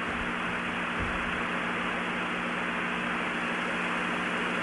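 Steady hiss with a low electrical hum from an open broadcast audio line, with no speech over it.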